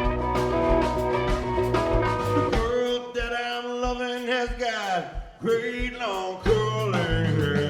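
Blues-rock band playing live. About three seconds in, the drums and bass drop out, leaving guitar notes that bend and slide downward. The full band crashes back in near the end.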